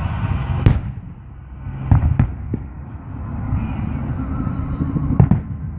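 Aerial firework shells bursting: one sharp, loud bang just under a second in, a few more around two seconds, and a quick cluster of three near the end, over a steady low rumble.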